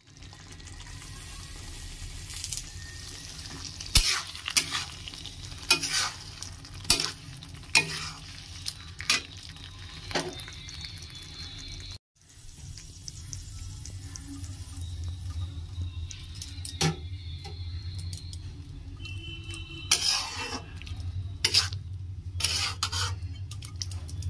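Flat metal spatula scraping and tapping against a metal kadai as a thick curry is stirred, in irregular strokes over a steady sizzle and a low hum. The sound breaks off briefly about halfway through.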